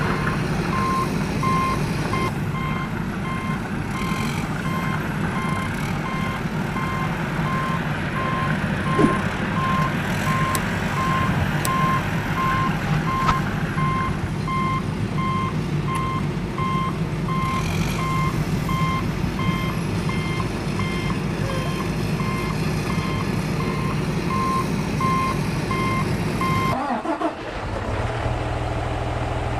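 Reversing alarm beeping steadily about twice a second over a heavy vehicle's diesel engine running. The beeping stops abruptly near the end, leaving the engine idling.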